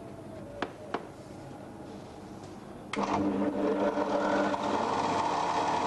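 Bench drill press running with a steady mechanical hum from its motor and belt drive on stepped pulleys. It gets suddenly louder about three seconds in. A few sharp clicks come near the start.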